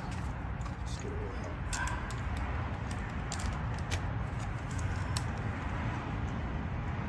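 Scattered light clicks and clinks of hand tools and metal parts, a few seconds apart, over a steady low rumble.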